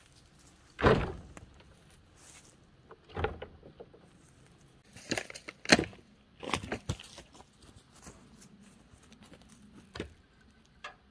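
Irregular wooden thumps and knocks as firewood rounds are handled and set into a pickup truck's bed. The heaviest thump comes about a second in, with a cluster of knocks around five to seven seconds in and a few more near the end.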